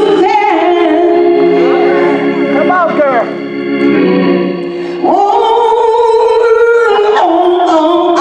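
Hammond organ holding sustained gospel chords, dropping quieter for a moment and then swelling into a new chord about five seconds in. A man's voice sings short phrases over it.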